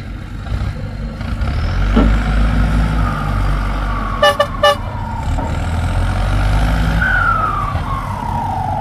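Turbocharged 7610 tractor engine working hard under heavy load to drive itself out of deep mud, with an excavator pushing from behind; a steady low rumble carries a high whine that slowly falls in pitch, and the rumble eases after about seven seconds. Two very short beeps sound about four and a half seconds in.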